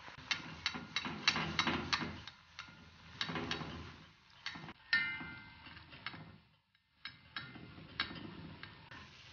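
Hot oil crackling and popping irregularly around an unnakkaya frying in a kadai, with a metal slotted spoon clinking against the pan; one clink about five seconds in rings briefly.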